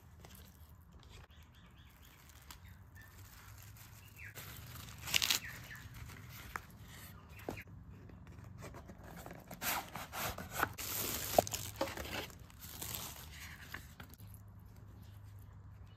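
Shop packaging being handled: cardboard and paper rustling in short bursts, with a few sharp clicks and taps.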